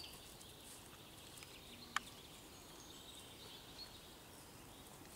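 Quiet forest ambience with faint, scattered chirps of small birds, and one sharp click about two seconds in.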